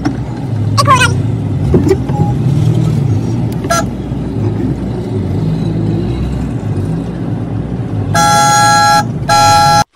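Car horn honked twice near the end, two short blasts under a second each, over the steady low rumble of the car's engine and road heard from inside the cabin.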